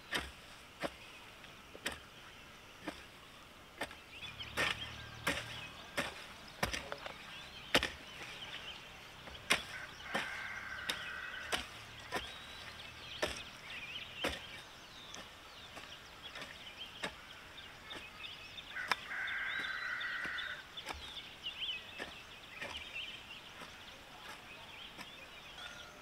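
Chopping: sharp, irregular strikes roughly once a second, with birds or poultry chirping throughout and two held calls of about a second each.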